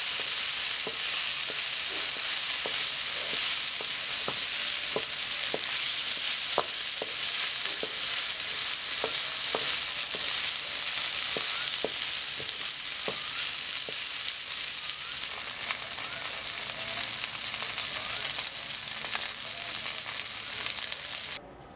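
Diced carrots, sweet corn and peppers sizzling in oil in a pan as they are stir-fried, with light clicks of the stirring utensil on the pan about twice a second. The sizzle cuts off suddenly near the end.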